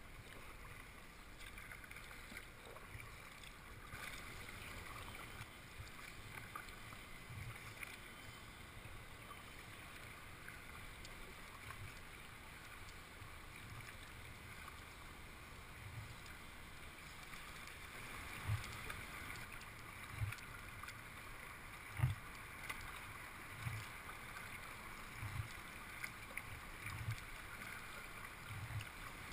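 Kayak paddling on calm water: a double-bladed paddle stroking steadily, with soft low thumps about every one and a half to two seconds over a faint, steady water wash.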